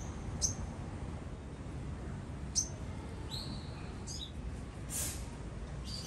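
Olive-backed sunbird giving short, high chirps: single notes spaced a second or two apart, then a quick run of three or four notes about four seconds in. A brief hiss comes about five seconds in, and a steady low background rumble runs underneath.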